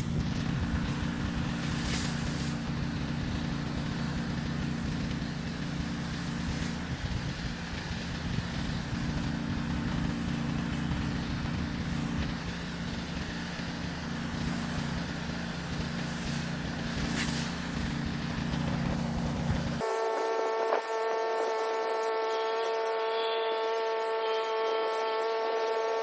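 Pressure washer running and spraying water: a steady low engine-and-pump sound under a hiss of spray. It cuts off abruptly about twenty seconds in, and a steady whining hum follows.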